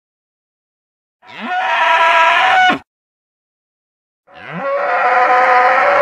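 Two long dinosaur calls from a film sound effect, the first about a second in and the second a second and a half after the first ends. Each opens with a rising sweep, holds a steady, many-toned call, and drops away in a short falling glide.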